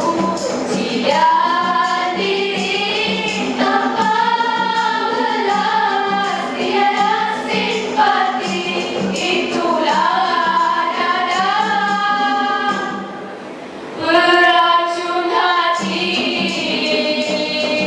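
Girls' nasyid group singing an Islamic devotional song together in vocal harmony into microphones. The singing drops quieter for a moment around 13 seconds in, then comes back louder.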